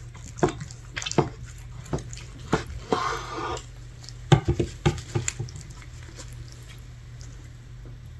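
Brisket being cut into, making juicy noises: a string of short, wet squelches and clicks, with a hissing smear about three seconds in. The sounds die away a little after five seconds in.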